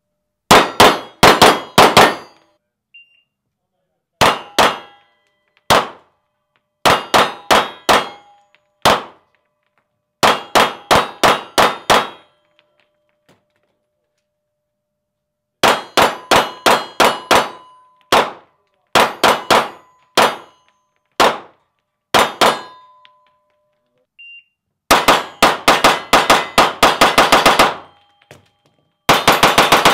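Pistol shots echoing in an enclosed indoor range, fired in quick strings of about four to six. A short electronic shot-timer beep sounds twice, about three seconds in and again past twenty seconds, and a string follows soon after each. Two long rapid strings come near the end.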